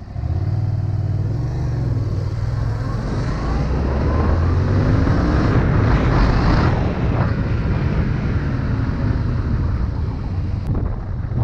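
Motorcycle engine running while under way; its pitch holds low at first, then rises and falls as the bike speeds up and eases off, loudest about halfway through.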